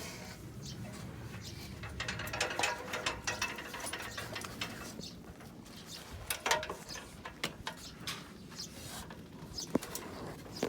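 Hand tools clicking and clattering in quick, irregular strokes, setting in about two seconds in, during work on an air conditioner's wall-mounted outdoor unit.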